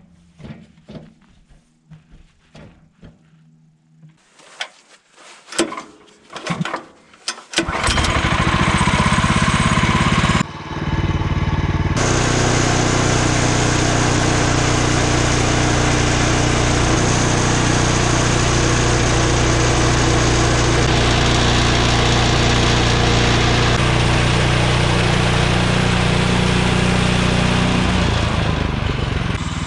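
Woodland Mills HM126 portable band sawmill's petrol engine starting after a few light clicks and knocks, then running loud and steady at speed, with the band blade cutting through a maple log; it eases off slightly near the end.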